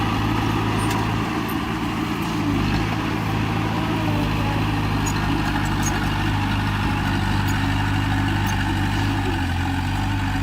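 Heavy diesel engine of earthmoving machinery running steadily, its pitch shifting slightly about two and a half seconds in.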